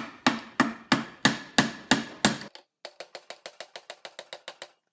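Hammer tapping the steel spindle of an Atlas 73 drill press out of its quill: about eight heavy strikes roughly three a second, then, after a short pause, a quicker run of lighter taps, about seven a second.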